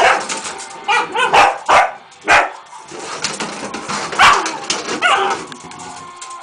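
Dachshund barking in short barks while playing with a soccer ball in a bathtub, with several sharp knocks as the ball hits the tub.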